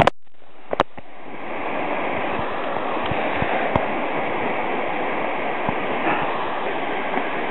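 Mountain stream rushing steadily, the water running high and swollen. A few sharp clicks sound in the first second.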